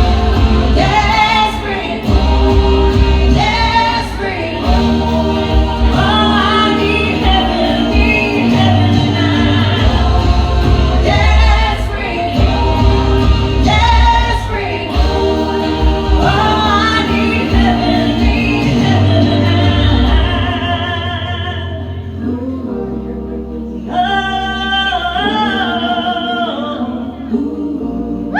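A song with singing over a strong bass beat; about two-thirds of the way through the bass drops away, leaving a quieter sung passage.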